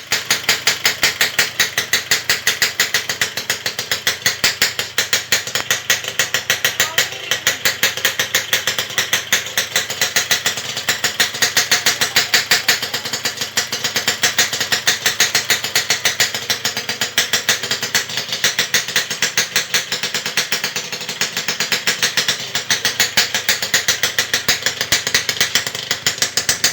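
Engine idling while it warms up, with a loud, rapid, even exhaust beat that stays steady throughout.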